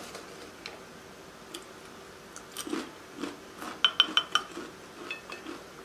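Plastic spoon clinking and scraping against a glass bowl of queso: a few soft taps, then a quick run of about five light, ringing clinks about four seconds in, with fainter taps after.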